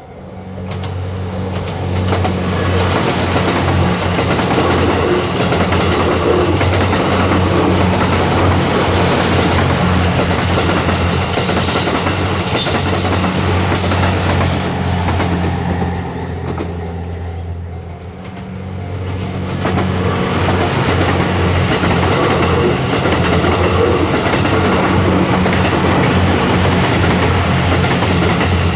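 Series 87 Twilight Express Mizukaze diesel-electric train passing close by: its engines hum steadily and its wheels clack over the rail joints, with some high wheel squeal. The sound eases off briefly just past the middle, then swells again with another pass of the same train.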